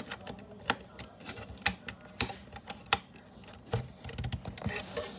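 Sharp, irregular clicks and taps of small hard parts of a homemade model vending machine being handled and pulled apart, with a busier clatter of small knocks near the end.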